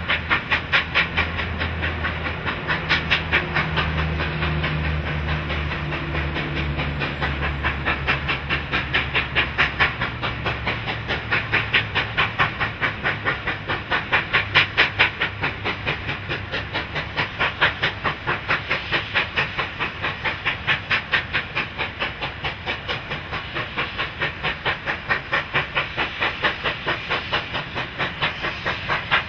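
Steam locomotive 3801, a streamlined 4-6-2 Pacific, hauling a passenger train with its exhaust beating in a steady, rapid rhythm over a hiss of steam. A low steady drone runs under it for the first several seconds.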